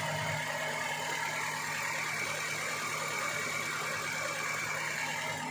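Maruti Gypsy's 1.3-litre four-cylinder petrol engine idling with a steady, even hum.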